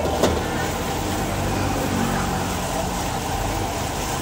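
Gas wok burner running with a steady rush under a wok while noodles are stir-fried, with one sharp clank of the metal ladle against the wok just after the start.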